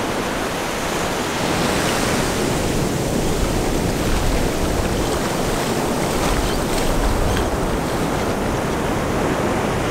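Ocean surf breaking and washing up the beach in a steady wash of noise, with wind rumbling on the microphone.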